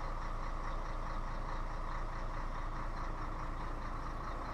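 Scania 113 truck's straight-six diesel engine running steadily at a standstill, with no change in pitch or level.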